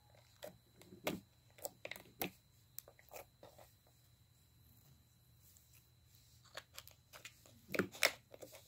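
Slime being handled, with its plastic tub: faint scattered small clicks and sticky crackles, a cluster in the first three seconds and another near the end.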